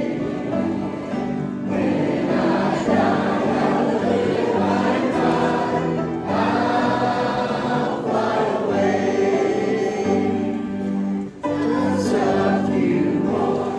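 A group of voices singing a hymn together in long held phrases, with short breaks between lines and a brief pause near the end.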